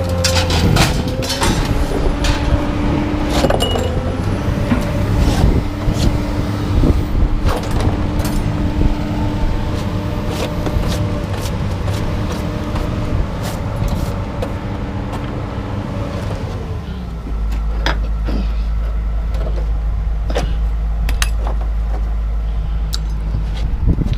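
A vehicle engine running steadily, its low hum getting deeper and stronger about two-thirds of the way through, with scattered clanks and knocks over it.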